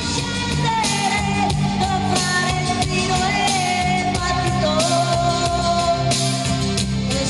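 A singer performing into a microphone over an instrumental pop accompaniment, holding long, sustained notes that slide a little in pitch.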